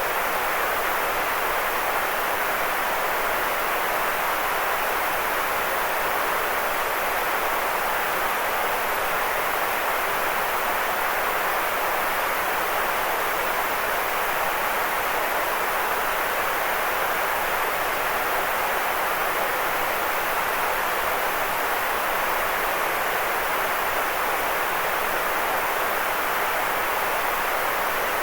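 Steady synthetic noise with an unchanging level, strongest in the middle range and thinner in the lows and highs. It is the kind of constant hiss played as a sleep aid.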